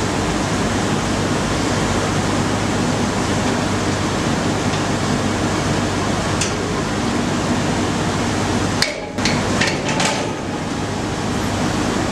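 Steady industrial plant noise with a low hum at a cement rail-wagon loading gantry. A light click comes about six seconds in, then a few sharp metallic knocks around nine to ten seconds in.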